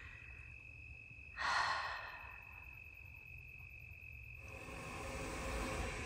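A single breathy exhale, like a sigh, about a second and a half in, over a faint steady high tone of insects. About four seconds in the background turns to a fuller steady hiss.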